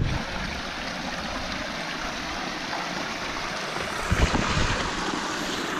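A roadside mountain spring (dhara) running and splashing steadily, with a brief low knock about four seconds in.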